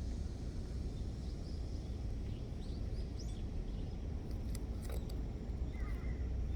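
Outdoor ambience: a steady low rumble, with small birds chirping faintly a few times in the middle and near the end, and a couple of brief clicks.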